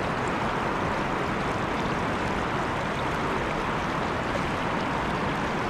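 River water running steadily: an even, unbroken rush of flowing water.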